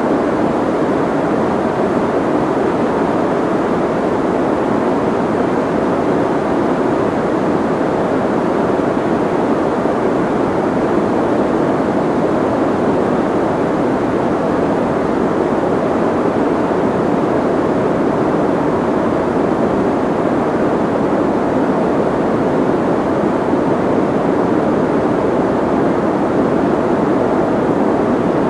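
Soft white noise: an even, unchanging rush with its weight in the low and middle range and the highs rolled off, giving it a muffled sound.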